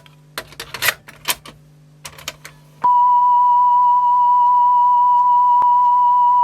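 Clicks and clunks from the Sony TC-WE305 cassette deck's transport being worked. About three seconds in, a loud, steady, single-pitched test tone starts playing back from the tape, used to judge the deck's speed wobble (wow) after new belts.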